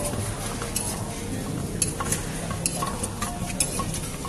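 Wooden pestle knocking in a clay mortar while a spoon turns the mix: som tam pounding and tossing. Irregular knocks and clicks, a few each second.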